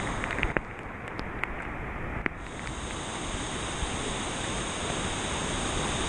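Swollen, muddy river in flood rushing with a steady noise of churning water, mixed with wind buffeting the microphone. A few sharp ticks sound in the first couple of seconds.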